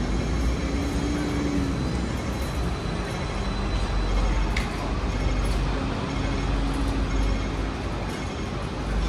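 Hong Kong double-decker electric tram running along its rails, heard from the upper deck: a steady low rumble and rattle, with a faint low hum that rises twice and fades.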